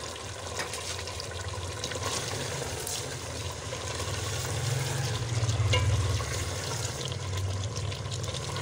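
A spoon stirring potatoes and meat through a thick curry in a metal pot, with faint scrapes and clicks, over a steady low rumble that grows louder a little past the middle.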